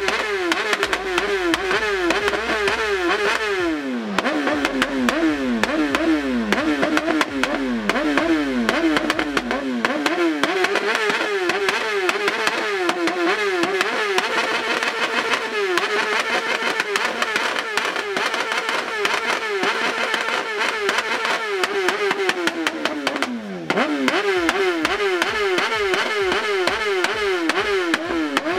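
BMW superbike's inline-four engine held against the rev limiter, the pitch bouncing rapidly up and down at the cutoff. Several times the throttle eases, the revs fall and then climb back to the limiter, most deeply a little before the end.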